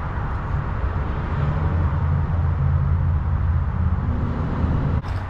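A steady low rumble of an idling engine, with a single sharp knock shortly before the end.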